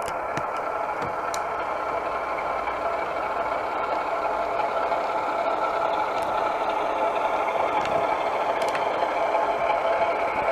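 O gauge model Class 08 diesel shunter's DCC sound decoder playing its engine sound through the model's small loudspeaker as the locomotive runs, growing slightly louder as it comes closer, with a few light clicks.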